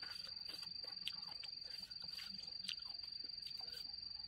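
A cricket trilling steadily on one high note, with scattered soft clicks from eating by hand.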